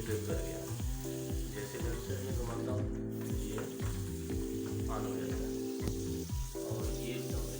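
Background music: sustained synth chords over a steady bass beat of about three to four thumps a second, with a hissy, crackling layer on top.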